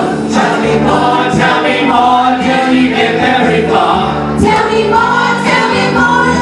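Amplified group singing: a woman sings lead into a microphone while several others sing along, over loud backing music with a steady bass line and a beat.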